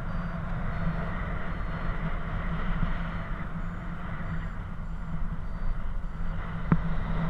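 Wind rushing over the camera microphone during a paraglider flight, a steady low buffeting, with faint short high beeps from a variometer at changing pitches. A single sharp click near the end.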